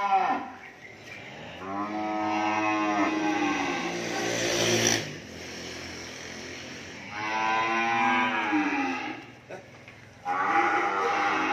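Cattle mooing: three long moos, each lasting two to three seconds, the first starting about a second and a half in and the last running on past the end.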